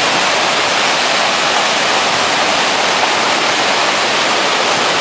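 Steady, loud rushing noise of a typhoon's wind and heavy rain, with no breaks or distinct events.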